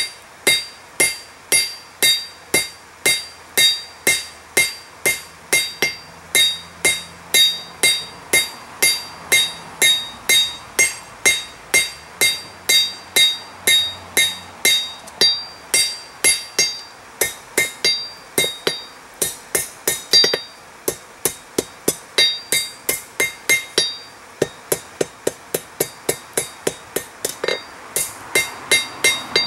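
Cross-peen hammer striking hot steel on a Peter Wright anvil, about two blows a second, each with a bright metallic ring from the anvil. The steel is being spread wide to draw out a flat blade on the end of a rod. The run of blows is broken by a few short pauses, and the blows come faster near the end.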